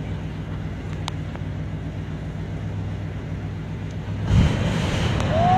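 A 1956 Ford pickup's engine idles steadily. About four seconds in it breaks into a sudden loud burst as it is run up.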